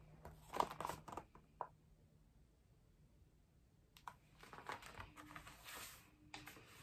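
Faint rustling and soft taps of a hardcover picture book being handled: a flurry of paper and cover noise as it is held up, a quiet pause, then more as it is lowered.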